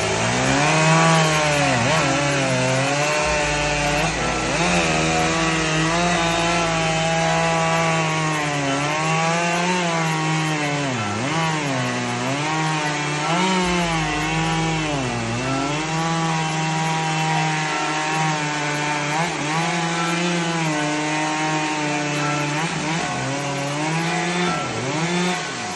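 Mobile sawmill cutting through a log: its engine runs under load with the saw hissing through the wood, the pitch dipping briefly and recovering every couple of seconds as the cut bogs it down.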